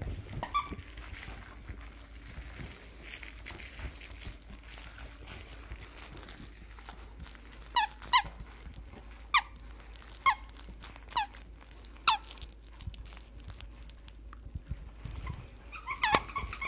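A dachshund chewing a plush squeaky dog toy, setting off its squeaker in short squeaks, each dipping slightly in pitch: one near the start, a string of single squeaks about a second apart through the middle, and a quick flurry near the end.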